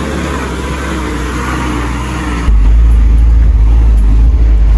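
Maruti Suzuki Jimny off-roading on a rough, stony dirt track, its engine running under load with tyre and gravel noise. About two and a half seconds in, the sound jumps to a loud, deep rumble heard from inside the cabin as the car jolts along.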